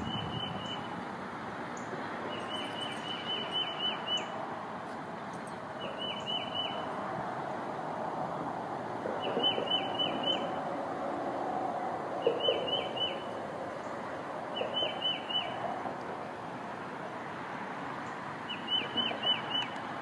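Songbirds scolding a perched red-shouldered hawk, a mobbing alarm. Their calls come in about seven quick bursts of four to six short, sharp notes each, a few seconds apart, over a steady background hiss.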